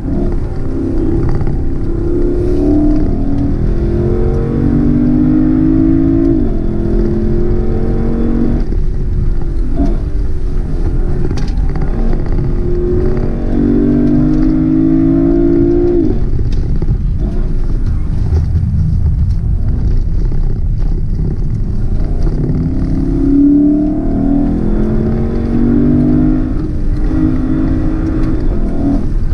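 Lexus LC500's 5.0-litre naturally aspirated V8 accelerating through the gears, heard from inside the cabin. The engine note climbs and then drops suddenly at an upshift of the 10-speed automatic, about six seconds in and again near sixteen seconds, then climbs once more late on, over steady road and tyre noise.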